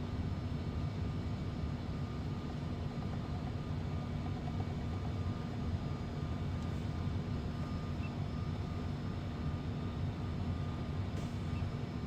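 Steady low machine rumble with a faint constant hum above it, unchanging throughout.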